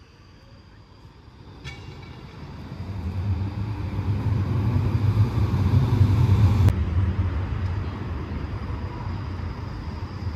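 A low-floor tram (STIB TNG, Bombardier Flexity Outlook) rolls past at close range, a low rumble of wheels on rails and running gear. It builds over about four seconds to its loudest, then cuts off suddenly about two-thirds of the way through, leaving a quieter steady rumble of street traffic and a distant approaching tram.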